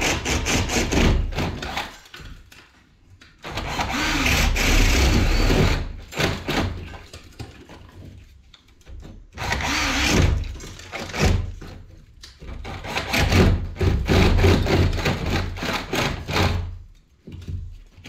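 Makita cordless drill with a spade bit boring holes up through a ceiling, running in about four bursts of two to three seconds with short pauses between.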